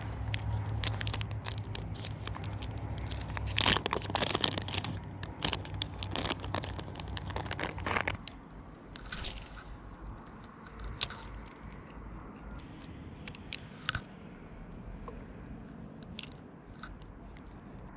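Hands handling a small plastic tackle box of jigs: dense crinkly clicks and crackles for about eight seconds, then only a few scattered clicks.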